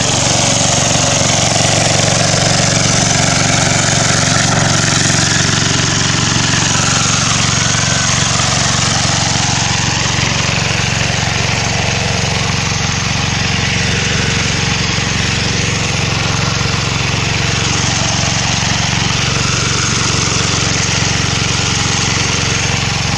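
A small engine running steadily at one constant speed.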